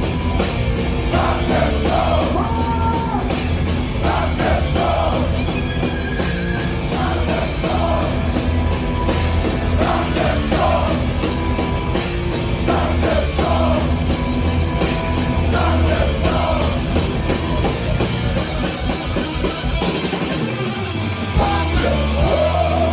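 Heavy metal band playing live: singing over distorted guitars, drums and a heavy, steady bass. Near the end the bass and drums drop out for a moment, then the full band comes back in.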